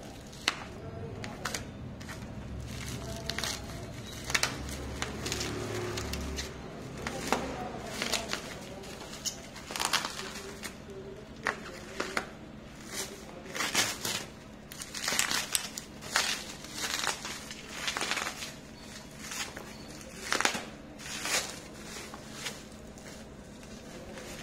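Plastic bubble wrap crinkling and crackling in a run of short bursts as hands tear it open and peel it off a packaged box.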